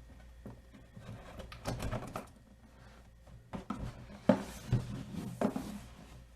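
A box being opened and its packaging handled by hand: irregular clicks, scrapes and rustles, in two busy spells.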